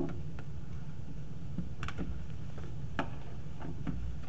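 Faint scattered clicks and taps of handling at a lectern microphone, about five in four seconds, over a steady low room hum.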